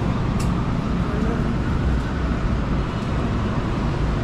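Steady low rumble of vehicle noise, with a brief click about half a second in.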